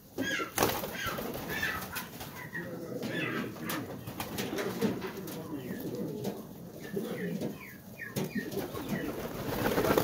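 A large flock of domestic pigeons cooing together in overlapping calls, with a few sharp clicks scattered through.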